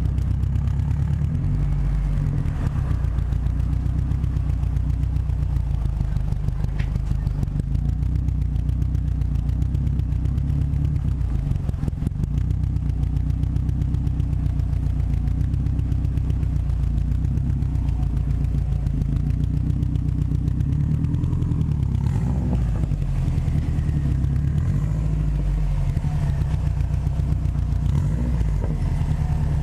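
Subaru WRX's turbocharged flat-four engine and exhaust under way, running steadily with a shift in engine pitch about 22 seconds in. This is the exhaust with a downpipe-to-cat-back flange adapter fitted to cure an exhaust leak.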